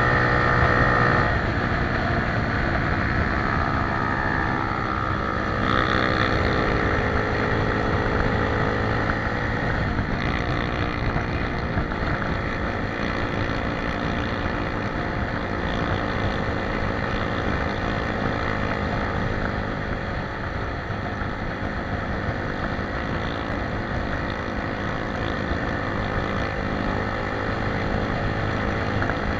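Motorcycle engine running while riding, a steady drone whose pitch drifts up and down slightly.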